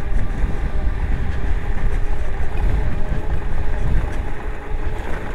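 Freego DK200 e-bike riding at speed through sand: heavy wind rumble on the microphone with tyre noise, and a faint steady whine from the electric motor.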